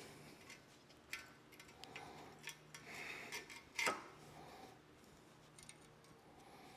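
Faint clicks and taps of small magnetic V-pad clamps being set against a steel square tube and mounting collar, with one sharper click about four seconds in.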